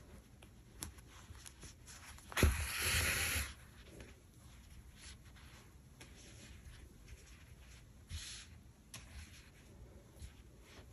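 Handling and sewing of chunky acrylic yarn crochet fabric: faint rubbing and small clicks. A louder rustle lasts about a second, a little over two seconds in.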